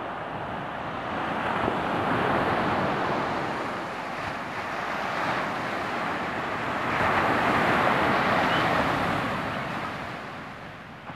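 Ocean surf washing onto a sandy beach, swelling louder about two seconds in and again for a couple of seconds in the second half, with wind buffeting the microphone.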